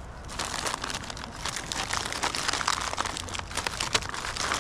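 MRE plastic pouches crinkling and rustling as they are handled, with irregular crackles throughout.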